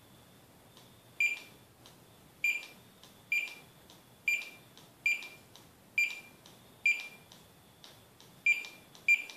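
Handheld barcode scanner beeping nine times at uneven intervals of about a second. Each short, high beep confirms a good read of a hybrid battery module's barcode.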